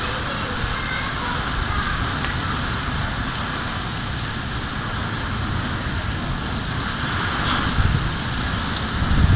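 Heavy rain falling steadily, a dense even hiss of rain on surfaces. Two brief low thuds come near the end.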